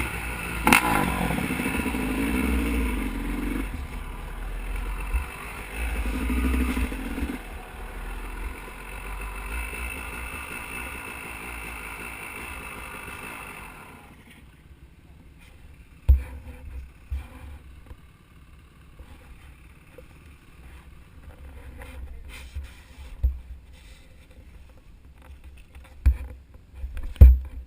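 Dirt bike engine running close by, revving a little in the first few seconds and then idling, shut off about halfway through. After that it is much quieter, with a few sharp knocks.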